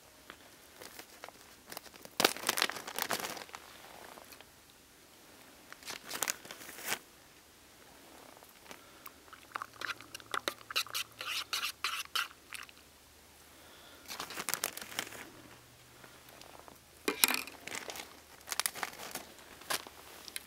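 Bursts of gear-handling noise: a titanium long-handled spoon stirring and clinking in a titanium cook pot about halfway through, and a plastic zip bag crinkling near the end.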